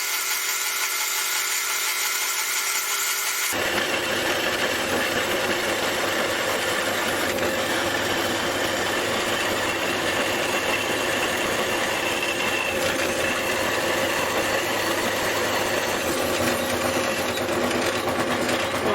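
Bandsaw cutting through a stack of four 3 mm steel plates, 12 mm thick: a steady, continuous saw noise as the blade works slowly through the metal.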